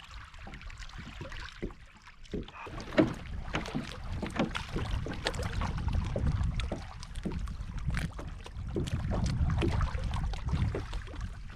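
Scattered clicks and knocks of fishing gear being handled aboard a kayak, over a low, uneven rumble.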